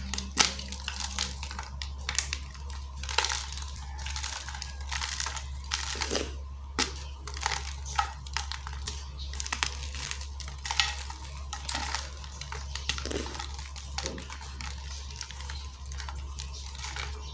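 Blocks of gym chalk being crushed, giving many irregular crunches and crackles, with a steady low hum underneath.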